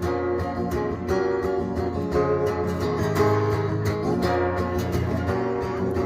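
Live band music in an instrumental passage between sung lines, led by strummed guitar.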